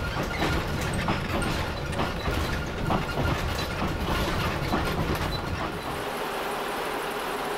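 Victorian Railways rail motor running along the track, its engine rumbling and the wheels clicking over the rail joints. About six seconds in the sound changes to a steadier engine idle as the rail motor stands at the platform.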